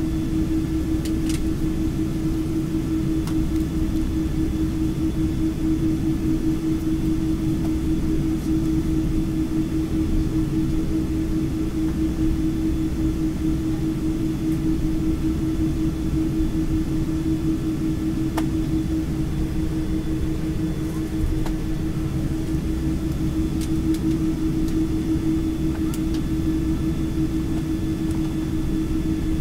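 Steady drone of an airliner's engines and cabin air heard from inside the cabin as it taxis, with one strong unchanging hum over a low rumble and a few faint ticks.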